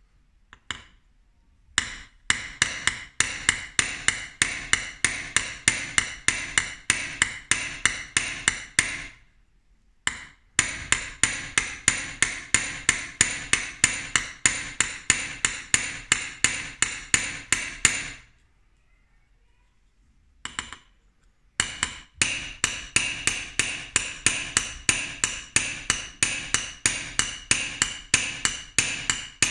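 Small steel hammer tapping rapidly on the back of a laminated Japanese plane blade held on a steel anvil block, metal on metal with a bright ring to each tap: uradashi, peening the blade's back to push the hard steel edge out. The taps come several a second in three runs of about eight seconds each, with short pauses between.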